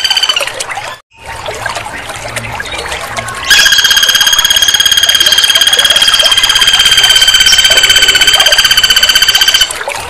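Flameback woodpecker giving a loud, very fast rattling trill held on one pitch for about six seconds. It starts abruptly a few seconds in and cuts off sharply near the end. Before it, a softer stretch with scattered faint chirps follows a brief dropout.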